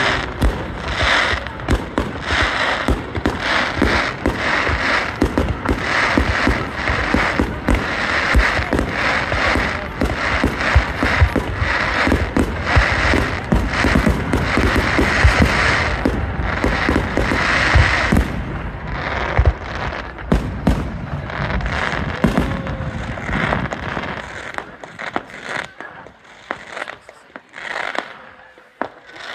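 Aerial fireworks display: a fast, dense run of shell bursts and crackle, thinning after about eighteen seconds and dying away to scattered pops near the end.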